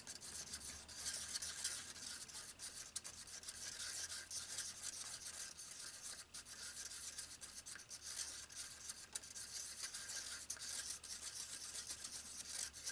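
A stirring stick scraping round a mixing cup as two-part resin is mixed continuously: a steady scratchy rubbing dotted with many small irregular ticks.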